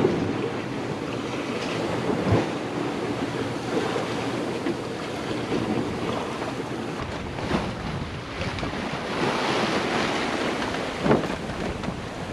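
Wind buffeting the microphone and water rushing along the hull of a Gulfstar 40 sailboat sailing fast in gusty wind. Three brief sharp thumps stand out, about two seconds in, past halfway, and near the end.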